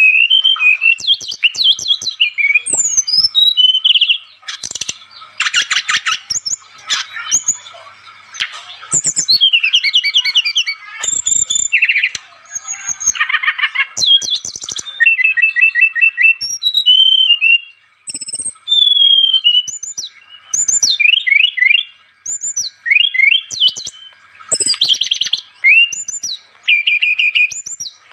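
Brown-chested jungle flycatcher (sikatan rimba dada coklat, SRDC) singing a busy, varied song: whistled notes, quick pitch sweeps and fast trills in short phrases, one after another with brief pauses.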